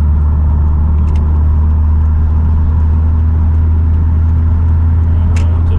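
Steady low drone of engine and road noise inside a car's cabin at highway speed, with a couple of brief clicks.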